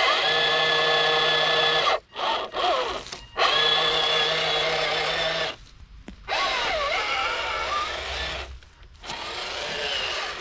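Tamiya High-Lift F-350 RC scale crawler's electric motor and gearbox whining as it crawls. The whine stops and starts about four times as the throttle is let off and reapplied. In the later spurts the pitch wobbles up and down.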